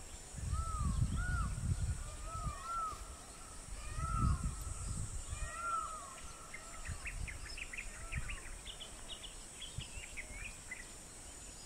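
Birds calling: faint short rising-and-falling calls repeated every half second or so, often in pairs, through the first half, then a run of quick high chirps from small birds in the second half. A low rumbling noise comes and goes at the start and again about four seconds in.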